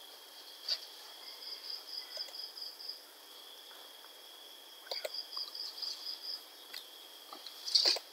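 Crickets trilling faintly in short pulsing runs over a steady high whine, with a few soft clicks, the loudest near the end.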